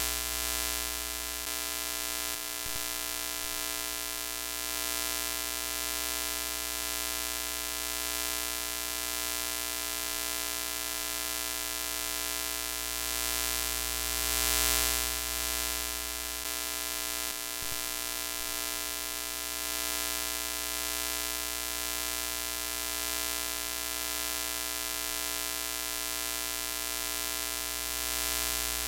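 Broken-TV static sound effect: a steady electrical buzz with many even overtones under a hiss. It swells briefly about halfway through, with short breaks in the low buzz a few seconds in and just past the middle.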